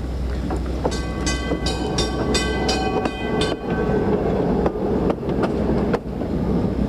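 PCC streetcar rolling past with a steady rumble from its wheels. About a second in, its warning gong is clanged rapidly, about three ringing strokes a second, for nearly three seconds. After that, sharp clicks from the wheels crossing rail joints.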